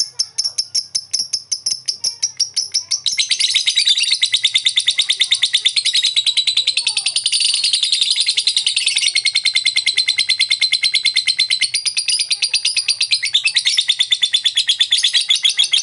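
Masked lovebird of the blue mutation giving sharp ticking calls ('ngetik') that quicken over the first few seconds, then break into a long, rapid, continuous chattering trill, the 'ngekek panjang'.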